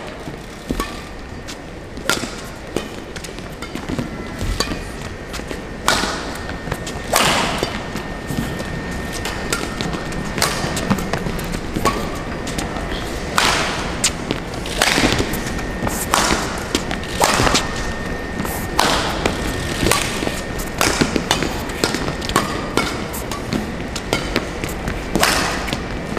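Badminton rally: rackets striking the shuttlecock about once every second or so, some hits sharper and louder than others, with players' footfalls thudding on the court mat.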